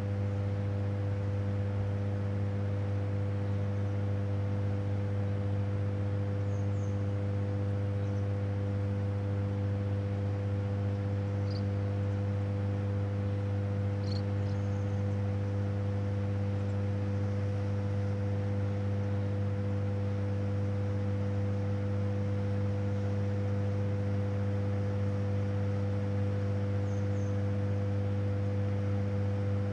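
Steady electrical hum of a hydroelectric power station: a low drone with a stack of higher overtones above it, holding the same pitch and level throughout.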